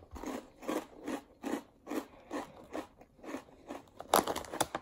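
Close-up chewing of a mouthful of thick, deep-ridged, kettle-cooked Ruffles Double Crunch potato chips: steady, rhythmic crunching about two and a half bites a second. A louder, sharper crackle comes about four seconds in.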